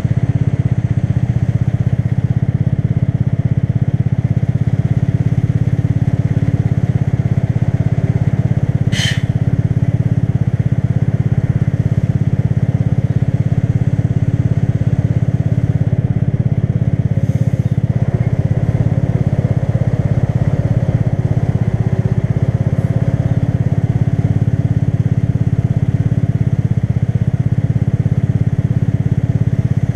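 Motorcycle engine running steadily while riding, a constant low drone with no clear revving. A brief sharp high-pitched sound cuts in about nine seconds in.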